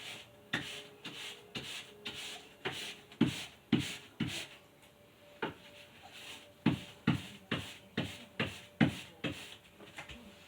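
Paintbrush strokes on a wall: short brushing swishes, each with a soft knock, about two a second with a brief pause in the middle.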